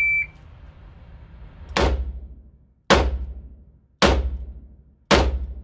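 A shot timer beeps once, then a Taurus RT 889 .38 Special revolver fires four shots about a second apart with hot +P+ ammunition, each shot echoing briefly off the walls of an indoor range.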